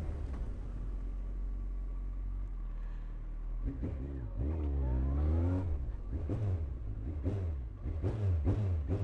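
Kawasaki ZX14 inline-four motorcycle engine with a full Akrapovič exhaust, idling steadily at first. About four seconds in it revs up, the pitch sweeping up and back down. It then rises and drops quickly about twice a second through to the end.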